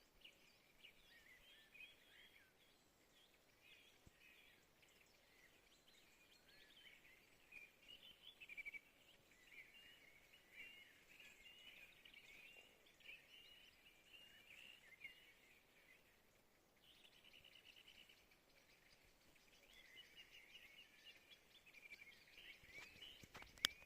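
Faint chorus of songbirds at sunrise: many overlapping chirps and twitters that continue with only a brief lull about two-thirds of the way through. A single sharp click near the end.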